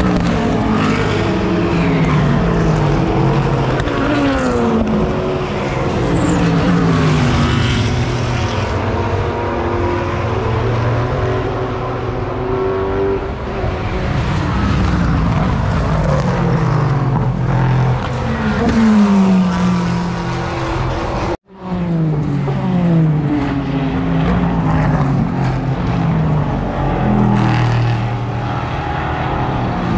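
Sports-car race cars passing at racing speed one after another, each engine note falling in pitch as it goes by. The sound cuts out for a split second about two-thirds through.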